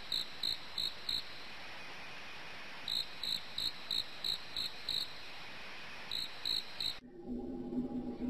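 Crickets chirping in runs of quick, evenly spaced chirps with pauses between, over a faint hiss. About seven seconds in they cut off, leaving a faint low hum.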